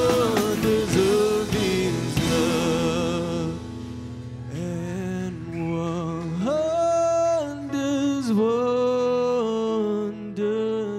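Live church worship band playing a slow song, with a sung melody over acoustic guitar, keyboard and band. The music drops quieter about four seconds in and goes on with long held notes.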